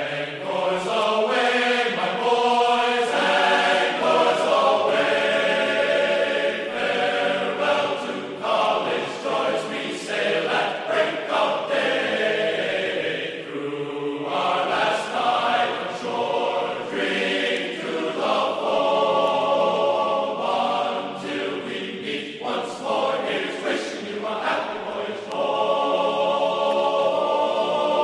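Background music: a choir singing a chant in held, sustained notes.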